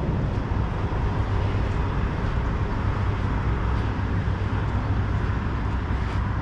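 Semi truck's diesel engine idling steadily, a constant low hum.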